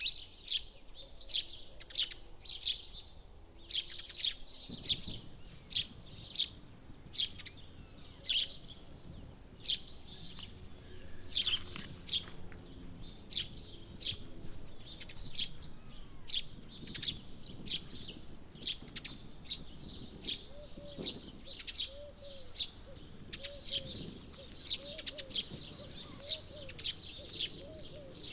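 Small birds chirping outdoors: a steady run of short, sharp, high chirps, about two a second.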